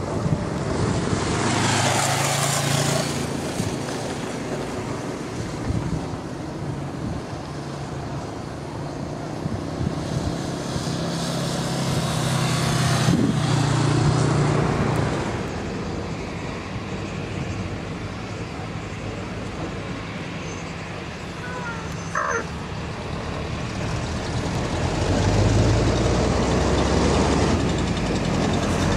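Airbus A321 jet engines running at taxi power as the airliner taxis past, a steady rush of engine noise with a low hum. A deeper low rumble comes in near the end as the aircraft sits lined up on the runway.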